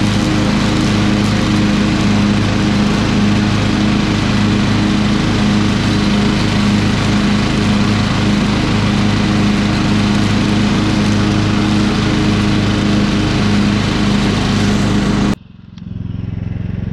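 Yardworks 17.5-horsepower riding lawn tractor running steadily at cutting speed with its mower deck engaged, cutting grass and weeds on a freshly fitted deck belt. The engine sound cuts off suddenly near the end.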